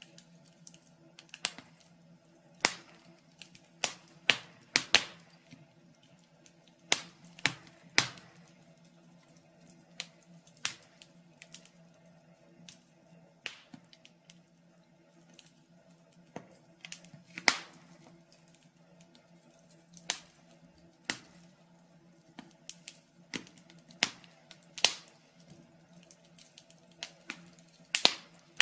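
Wood fire in a fireplace crackling: irregular sharp pops and snaps, about one or two a second and varying in loudness, over a faint steady low hum.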